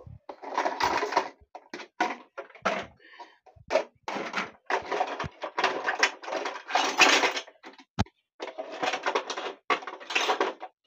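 Plastic cups, mugs, bowls and plates clattering and knocking together in a plastic basin as they are handled, in irregular bursts with short pauses and one sharp knock about eight seconds in.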